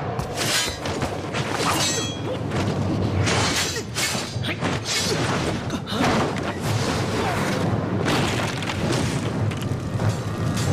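Sword-fight sound effects: a quick series of clashes, crashes and thuds, with music underneath.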